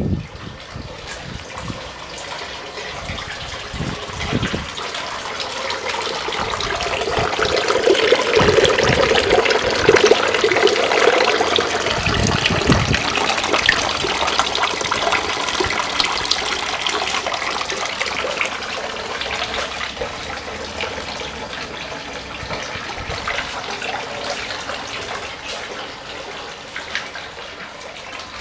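Water from a stone garden wall fountain's three spouts pouring and splashing steadily into its basin, louder for a few seconds near the middle.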